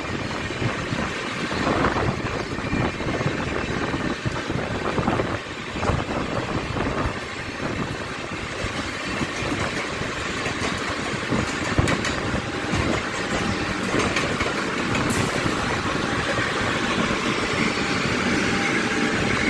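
Trains running side by side, heard from inside a moving Mumbai suburban local: a steady rumble and rush of wheels on rails and passing air, with a few brief clacks.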